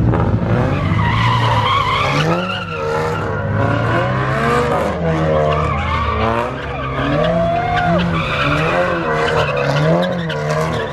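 A car doing donuts: its tyres squeal continuously with a wavering pitch while the engine revs up and down about once a second.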